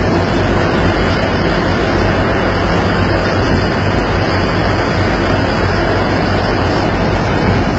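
Steady loud drone of a vessel's engine and machinery with a low hum, mixed with rushing wind noise on the microphone.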